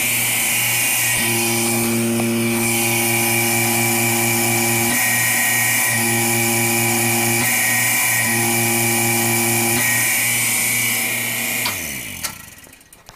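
Teaneck Graphics Fast Draw vacuum pump's electric motor and pump running steadily, with a strong hum and hiss, while pulling vacuum. It winds down in pitch and stops near the end.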